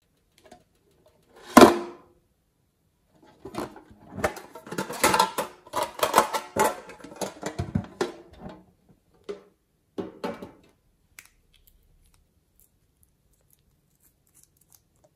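Hands handling small hard containers, a metal card tin and a small glass bottle: one sharp knock, then several seconds of clicking, rattling and scraping, a few last clicks, and then quiet.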